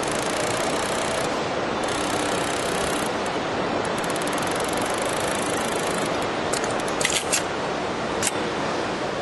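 Yamato VC2790G cylinder-bed interlock-stitch sewing machine running steadily at speed, stitching a fabric tube, with a few sharp clicks near the end as the work is drawn off.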